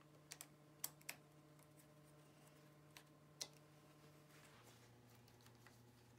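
Near silence broken by a few light clicks and taps from hands handling a throttle and its mount on a bicycle handlebar end. There are four in the first second or so and two more around three seconds in, over a faint steady hum that drops slightly lower in pitch about four and a half seconds in.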